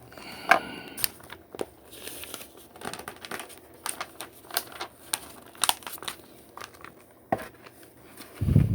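Plastic Lego pieces being handled and pressed together: a string of sharp clicks and small rattles with some crinkling, and a short low thump or murmur near the end.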